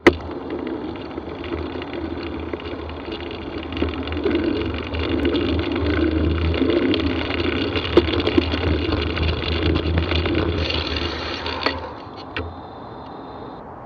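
Wheels rolling over a rough, muddy, leaf-covered path, with a steady rumble and frequent small rattles and knocks, under constant motorway traffic noise. The rolling stops about twelve seconds in, leaving only the steady traffic rumble.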